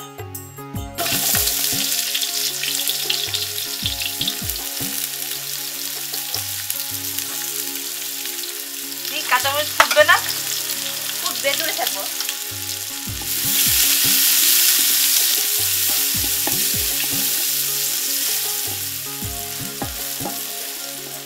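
Sliced onions and green chillies frying in hot oil in a large metal pot, a steady sizzle that starts suddenly about a second in, grows louder about thirteen seconds in and eases off near the end. A few sharp scraping clinks stand out near the middle.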